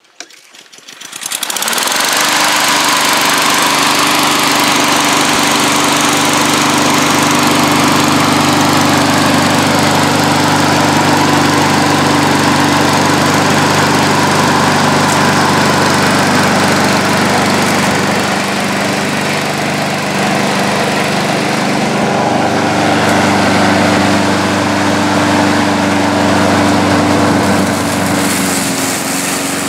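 Honda HRR216VKA self-propelled lawn mower's single-cylinder GCV160 engine comes up about a second in and runs steadily. Its note wavers a little in the second half and dips near the end as the mower cuts into the grass.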